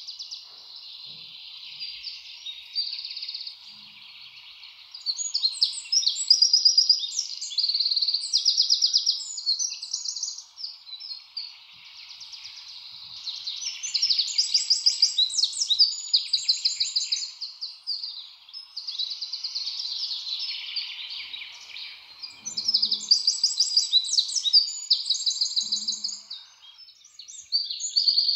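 A dense outdoor chorus of rapid chirping trills, swelling and fading in waves every few seconds, over a faint steady buzz of more distant calls.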